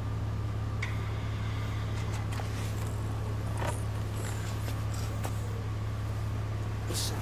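Kawasaki motorcycle engine idling steadily with a low, even rumble and a few small clicks.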